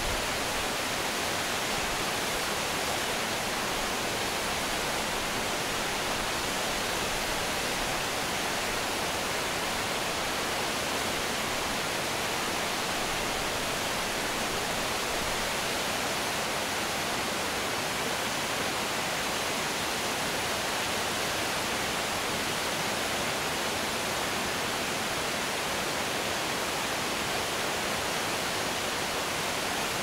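Shirahige Falls pouring down a rock face into the rapids of the Biei River: a steady, unbroken rush of water.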